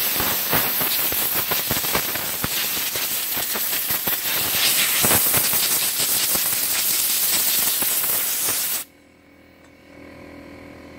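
Compressed air hissing from a compressor-fed pistol-grip air blow gun, blasting through a shotgun's opened action to blow out solvent and loosened powder residue. The blast wavers in strength and cuts off sharply about nine seconds in.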